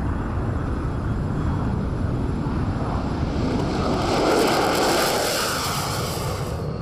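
F-35 fighter jet engine at takeoff power: a steady low rumble that grows louder and brighter about three and a half seconds in as the jet passes close, then cuts off suddenly near the end.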